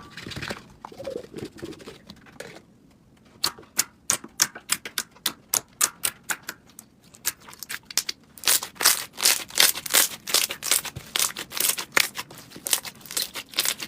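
Slime being squished and pressed, giving sharp clicks and pops: a soft squish at first, then sparse snaps that grow into a fast, dense clicking from about halfway on.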